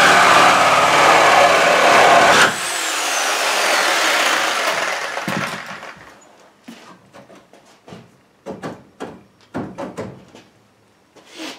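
Reciprocating saw cutting through the sheet-metal roof pillar of a car body, stopping abruptly about two and a half seconds in. Its motor whines down and the noise fades over the next few seconds. A few scattered short knocks and clicks follow.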